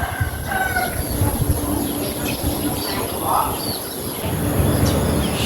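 A pause between bulbul song phrases: a few faint, short bird calls near the middle over low rumbling background noise.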